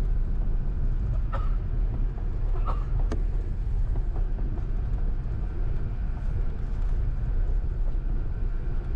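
Airbus A380 cabin noise heard from a window seat on the upper deck: a loud, steady, low rumble. A few brief knocks or rattles come in the first few seconds.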